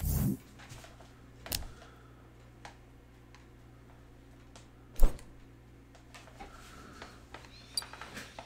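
Handling noise in a small room: a few scattered clicks and knocks, with one sharp knock about five seconds in the loudest.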